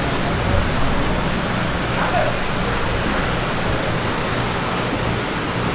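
Steady rushing noise with a low hum underneath.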